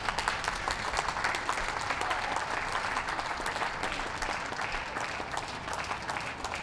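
Audience applauding: dense clapping that starts at the beginning and eases slightly toward the end.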